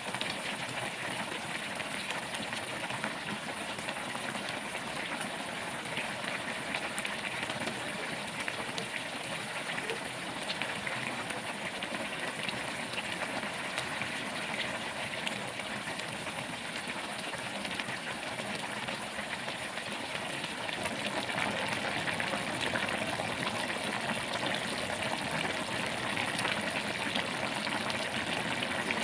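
Pot of pork and vegetable broth simmering: a steady hiss of bubbling with many small pops and crackles throughout, a little louder in the last third.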